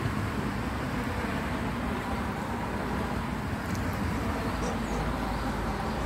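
Steady outdoor background noise: a low rumble with a hiss over it, unbroken throughout.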